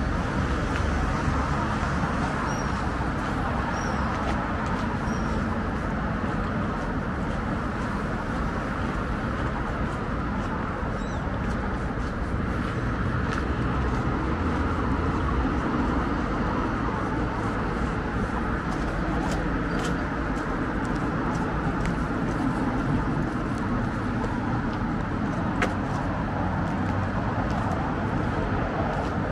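Steady city road traffic noise, cars running on the street nearby. A few short, high chirps come about three to five seconds in.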